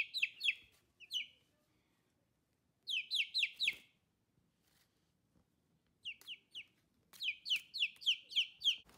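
Chicks peeping: runs of short, high, falling peeps at about four a second, coming in several bursts with short pauses between.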